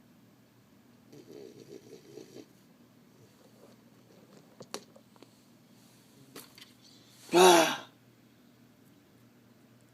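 Sleeping dog snoring: one rattling, fluttering snore about a second in, then a single short, much louder sound about seven seconds in.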